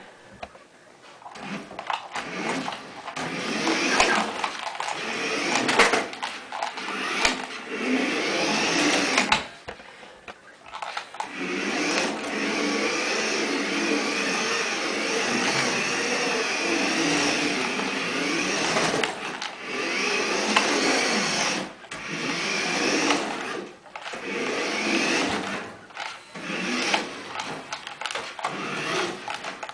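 Small electric motor of a toy RC car whining as it is driven, its pitch rising and falling with the throttle and cutting out briefly several times when the throttle is let off.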